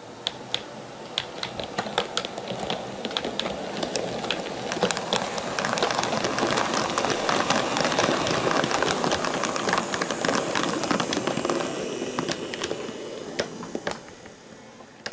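H0-scale model train double-headed by two electric locomotives rolling past. The running noise of motors and wheels builds as it approaches, is loudest about seven to ten seconds in, then fades away. Rapid irregular clicking runs through it as the wheels cross the rail joints and points.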